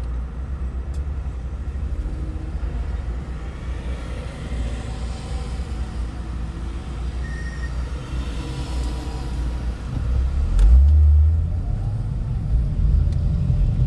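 Car driving on a road, a steady low rumble of engine and tyres. It briefly gets louder and deeper for about a second near the end.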